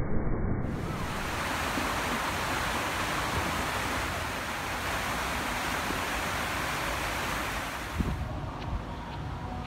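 Heavy, steady rush of water cascading down a water-park wall feature and splashing into a shallow pool. It cuts off about eight seconds in to a quieter background.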